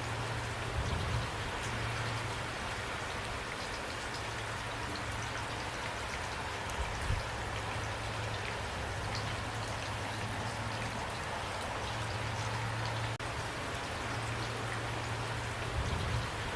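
Steady rain falling, an even hiss with many small drop ticks, over a constant low hum. A few dull low thumps come through, the loudest about seven seconds in.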